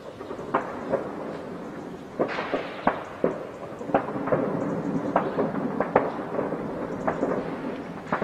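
Gunfire: about a dozen single shots, irregularly spaced half a second to a second apart.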